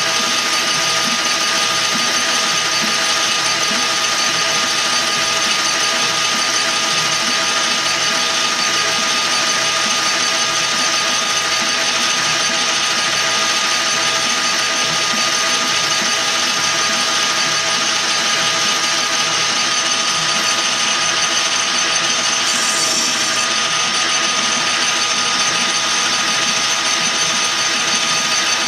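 Metal lathe running under a cut, its gear train giving a steady whine of several tones over the hiss of the tool turning down the outside of a metal tube. A brief higher hiss comes about three-quarters of the way through.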